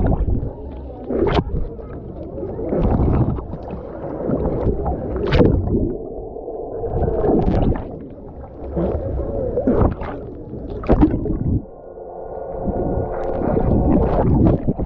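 Sea water around an action camera dipped in and out of the surface: muffled underwater rumble and gurgling, exhaled air bubbles, and repeated sharp splashes as the camera breaks the surface.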